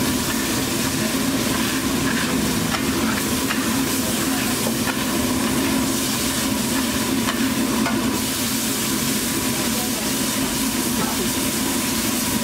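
Green egg mixture sizzling on a large flat metal griddle while a metal spatula scrapes and spreads it across the hot surface, with a steady low hum underneath.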